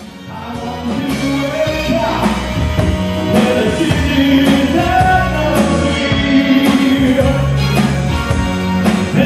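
Live band playing with a steady drum beat, bass and electric guitars, a saxophone and a singer, fading in over the first second or so.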